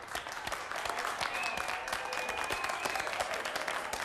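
A roomful of people clapping their hands in steady applause.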